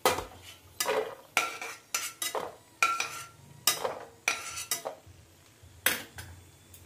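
A steel spoon knocking and scraping against a stainless steel kadhai and a steel plate while roasted cashews are scooped out of hot ghee. About ten sharp metallic clinks, some with a brief ring.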